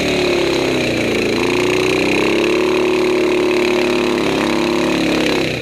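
Quad bike (ATV) engine running under load as it churns through deep mud, its pitch sagging and rising as the throttle is worked.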